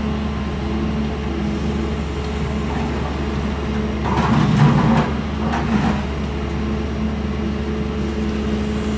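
Demolition excavator's diesel engine running steadily under load, with a louder burst of crunching and clatter from breaking debris about four seconds in.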